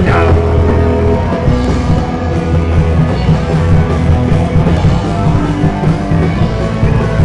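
Live rock band playing loud: electric guitars, bass guitar and drum kit together, heavy in the bass.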